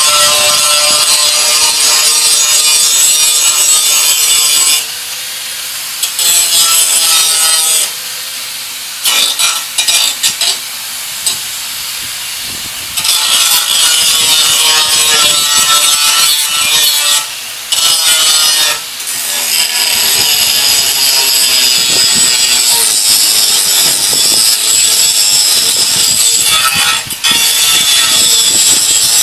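Angle grinder cutting through the steel of a riding-mower deck: a loud, high hiss of the disc on the metal over the motor's whine. There are a couple of quieter stretches in the first half.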